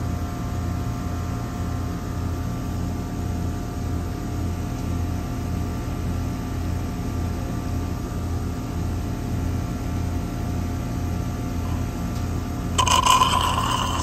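Refrigeration vacuum pump running steadily with a pulsing hum while it evacuates an air-conditioning system. Near the end comes a brief metallic scraping clink.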